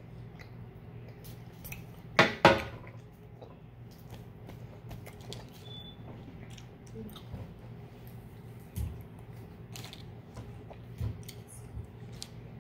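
Soft, wet chewing of a peeled rambutan, with small scattered mouth clicks over a faint steady hum. Two short loud bursts come close together about two seconds in.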